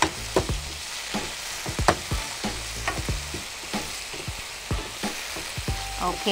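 Chopped onions, tomatoes and green chillies sizzling in oil in a nonstick frying pan as a spatula stirs them, with frequent irregular clicks and scrapes of the spatula against the pan. The mixture is being sautéed down with ginger-garlic paste.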